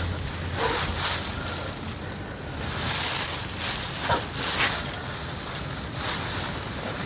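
Dry grass and straw rustling in irregular bursts as hands push and rummage through a grass clump.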